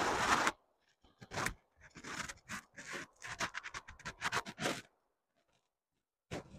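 A run of short, irregular scraping and rubbing sounds that stops about five seconds in.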